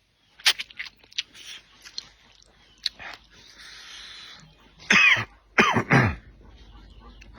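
Wet chewing and lip smacks while eating noodles and duck, a short slurp-like hiss, then about two-thirds of the way in three loud, harsh coughs one after another.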